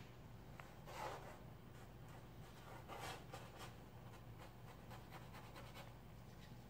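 Faint, scratchy swipes of a paintbrush stroking paint onto a large canvas, a handful of separate strokes with the clearest about one and three seconds in, over a low steady hum.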